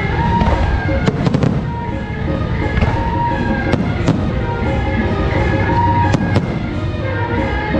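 Electronic firecrackers popping in scattered sharp cracks, several in quick clusters, over loud music with held, horn-like tones.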